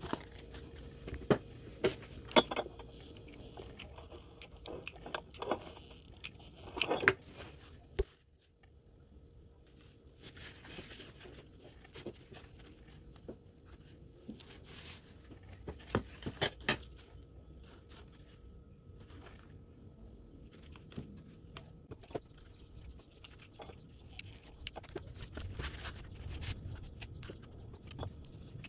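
Handling noises from crafting materials: cardboard, fabric and a thin MDF board being moved, rubbed and set down on a table, with scattered light taps, scrapes and rustles.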